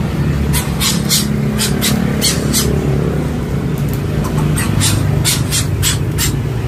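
A motor vehicle engine running steadily nearby, a low hum, with irregular sharp snips of scissors cutting up snails.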